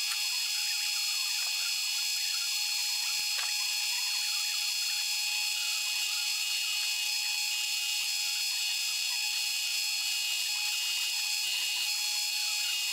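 Drilling machine's spindle running a twist drill into a metal part: a steady high-pitched whine with several held tones over a hiss.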